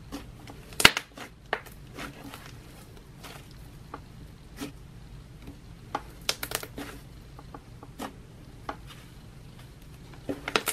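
Red butter slime squished and kneaded by hand, giving irregular sticky clicks and pops, the loudest about a second in and a quick cluster around six to seven seconds.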